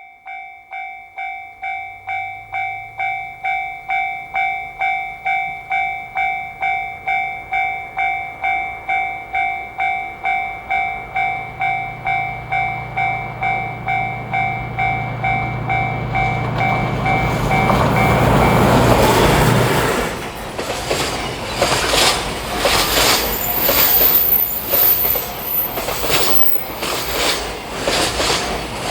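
Level-crossing warning bell ringing in quick electronic dings, about two a second, while the drone of an approaching diesel train grows steadily louder. From about two-thirds of the way in the bell is drowned as the train passes, its wheels clicking rapidly over the rail joints.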